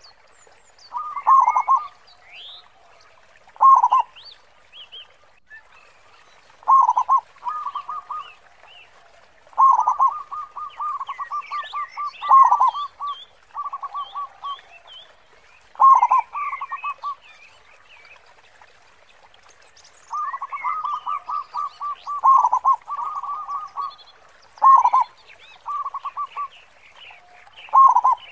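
Zebra dove (local Indonesian perkutut) cooing in repeated bouts every few seconds. Each bout is a quick run of staccato notes with one louder, deeper note, the big 'khong' voice. Small birds chirp faintly behind.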